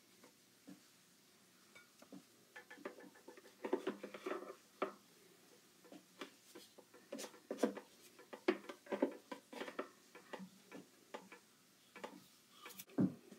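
Faint, irregular clicks, taps and short scrapes of a plastic spatula and fingers against a waffle maker's plates and a plate as cooked waffles are lifted off, with a duller knock near the end.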